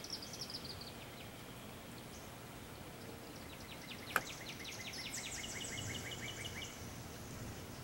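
Small birds singing over a steady outdoor hiss: a quick falling run of high notes at the start, then from about three and a half seconds in a trill of rapidly repeated notes lasting about three seconds. A single sharp click about four seconds in is the loudest sound.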